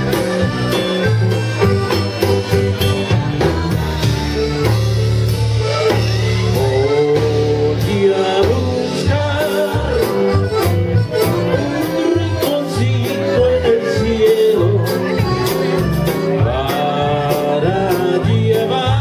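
Old-school Tejano dance music played live by a band, with a singer over a steady beat of bass and drums.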